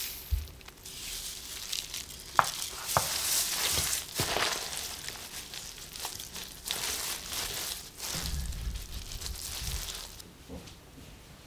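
Gloved hands tossing and squeezing seasoned pepper leaves in a bowl: wet rustling and squishing that comes in uneven bouts, with a few small clicks.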